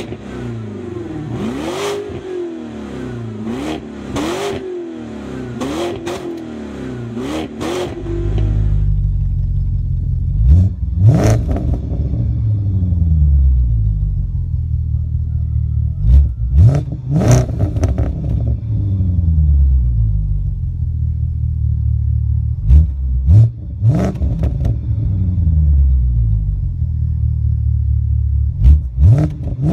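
BMW 550i GT F07 V8 with a custom exhaust blipped four times, each rev rising and falling in pitch. About eight seconds in, this gives way to a BMW E60 550i V8 with a sport quad exhaust, idling deep and revved in quick pairs about every six seconds.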